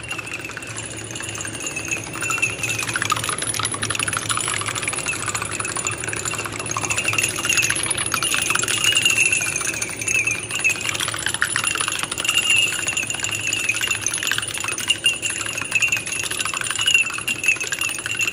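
Long chain of small shot glasses filled with coloured water toppling one into the next: a rapid, continuous clinking of glass on glass. A steady high-pitched tone runs underneath.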